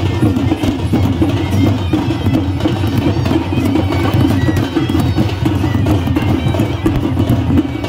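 Traditional folk band playing: double-headed barrel drums beaten in a steady rhythm under a nasal reed pipe.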